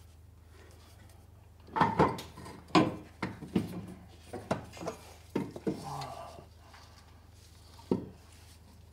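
Metal clunks and knocks from the golf cart's old electric drive motor as it is worked off the rear-end shaft and lowered to the floor: a run of sharp knocks starting about two seconds in, with one last knock near the end, over a low steady hum.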